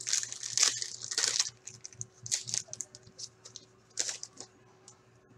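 An Upper Deck Trilogy hockey card pack's wrapper being torn open and crinkled by hand. A loud rustling tear runs through the first second and a half, then scattered crinkles follow, with another sharp crackle about four seconds in.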